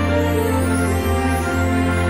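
Instrumental background music with long held notes over a steady low note.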